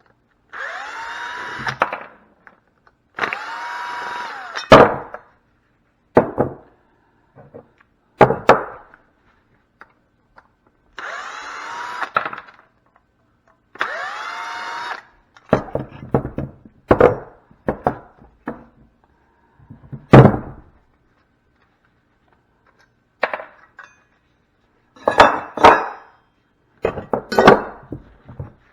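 A power drill runs in four short bursts of about two seconds, each opening with a rising whine as the motor spins up. Sharp knocks and clanks of metal parts fall between the runs, with several more in quick succession near the end.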